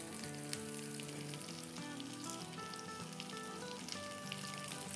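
Faint sizzling of chicken tikka, fries and toppings in a hot frying pan on a gas burner, under soft background music.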